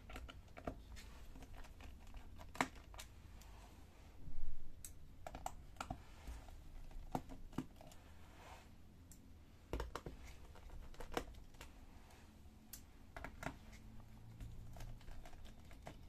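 Irregular small clicks and taps of a precision screwdriver backing the screws out of a laptop's bottom panel, with a louder knock about four seconds in.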